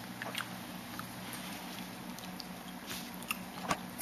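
A fork clicking and scraping on a plate as a slice of pie is cut and eaten, with scattered small sharp clicks, the loudest near the end, over a low steady hum.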